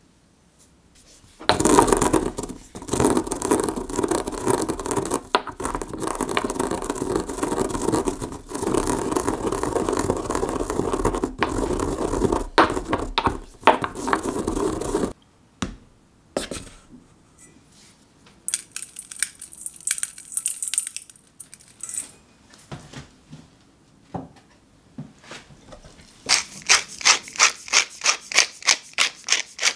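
Fennel and mustard seeds crushed in a stone mortar with a pestle: a loud, steady grinding for about thirteen seconds, stopping about halfway through. Near the end comes a fast, even run of sharp ratcheting clicks, about eight a second, from a pepper mill grinding black pepper.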